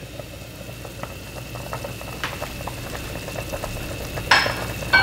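Sinigang broth boiling hard in a pot, a steady bubbling hiss with small pops. Near the end come two short ringing clinks, the loudest sounds.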